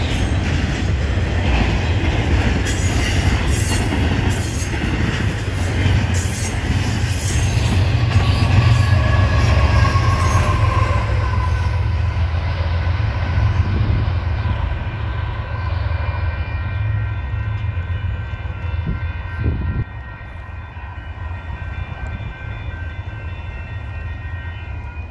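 Union Pacific double-stack container freight train rolling past close by: heavy low rumble with wheel and rail noise, and a brief wheel squeal about nine seconds in. As the rear locomotive goes by, the rumble fades, and a steady high-pitched ringing of several tones holds on through the second half.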